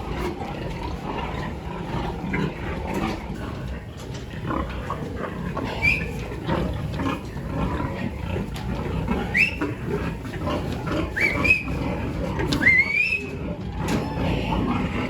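Pigs grunting, with several short rising squeals in the second half, over a busy background of knocks and clatter.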